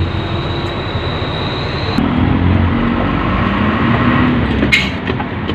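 Truck's engine and road noise heard from inside the cab while driving, a steady low rumble whose pitch shifts a couple of seconds in. A single sharp click near the end.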